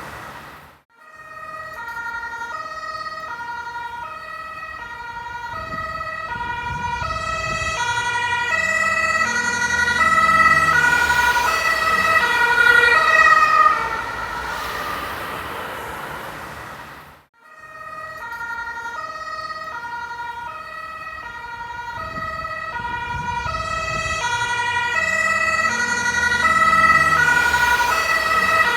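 German ambulance two-tone siren alternating between a high and a low note as the vehicle approaches, getting steadily louder, then dropping in pitch and fading as it passes, with engine and road noise underneath. After a brief silence the same pass plays again.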